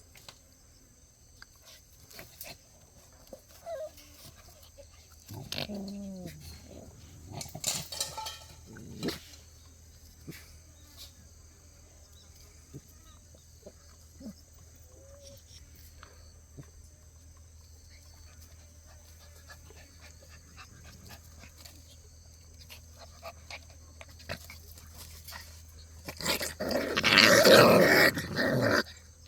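Jindo puppies play-fighting: scattered scuffling and small growls, a short yelping whine about six seconds in, and a loud burst of growling near the end.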